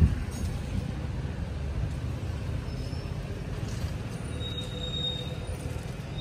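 Steady low rumble of a vehicle travelling along a highway, heard from on board, with a brief knock right at the start.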